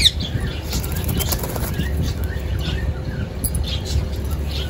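Pigeons flapping their wings in a flock, with a few short high bird chirps over a steady low rumble.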